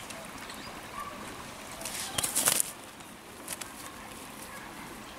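A burst of rustling and flapping about two seconds in, lasting under a second, as a caught fish and the wet cast net are handled on grass.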